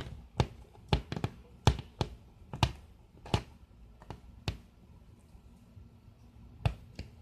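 A cat scratching with its claws: a run of short, sharp scratching strokes, roughly two a second and unevenly spaced, that stops about four and a half seconds in, with one more stroke near the end.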